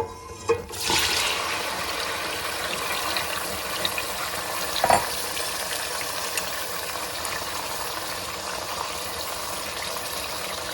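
A couple of clanks, then about a second in a loud sizzle starts up from olive oil and garlic frying in a stainless steel pan, and it carries on as steady frying.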